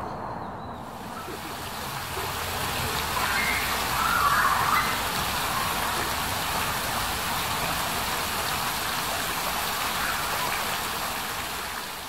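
Steady rushing of running water, with a short brighter sound about four seconds in.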